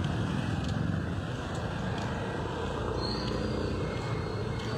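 Road traffic noise: motorcycles and cars running past, a steady low rumble with a faint engine hum in the middle.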